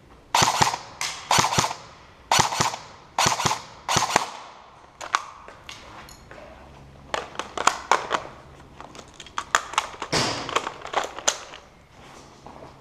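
Airsoft guns firing. Loud shots come in quick pairs and short bursts for about the first four seconds, then lighter shots follow, scattered and rapid.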